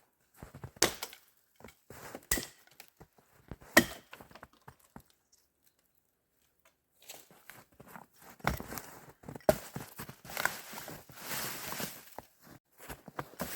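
Axe chopping wood: three sharp blows about a second and a half apart. After a pause, a long stretch of crunching and rustling with scattered snaps.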